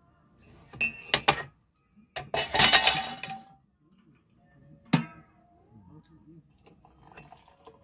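Metal kitchenware clinking and clattering: a spoon tapping against a metal coffee canister and cups, then a louder metallic clatter as a stainless-steel whistling kettle is handled, and one sharp click about five seconds in.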